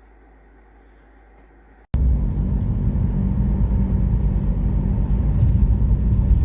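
Faint room hum, then, from an abrupt cut about two seconds in, the steady low rumble of a car being driven, heard from inside the cabin.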